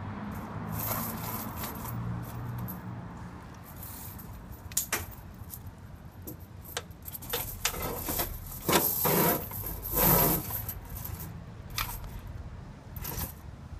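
Steel cable tire chains with coiled steel spring rollers rattling and clinking as they are handled and lifted up around a tire, with the loudest jangling in a cluster about two thirds of the way through.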